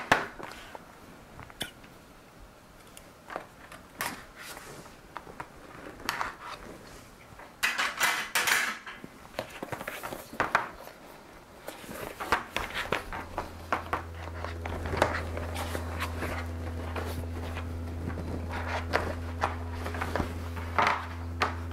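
A cardboard product box being handled and opened on a tabletop: taps, knocks, scraping and sliding of cardboard as the box is turned over and the inner tray is worked out. A steady low hum comes in about halfway through and runs on underneath.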